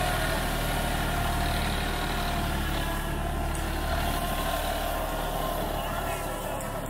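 New Holland 3630 tractor's diesel engine running steadily while pulling a PTO-driven Jagatjit super seeder through burnt stubble.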